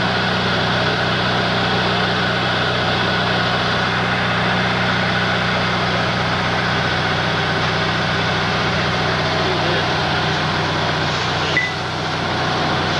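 Vehicle engine idling steadily with an even hum, and a brief click near the end.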